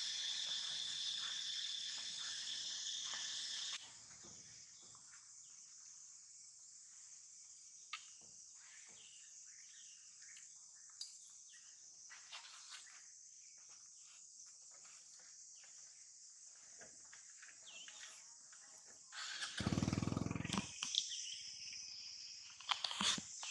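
A steady high-pitched insect drone, louder for the first four seconds, with scattered small clicks and rustles. About 19 seconds in, a loud low rumble lasts a second or two, followed by a few sharp clicks.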